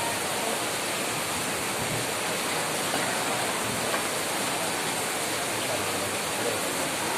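Steady downpour of rain, an even hiss of falling water with no separate drops or breaks.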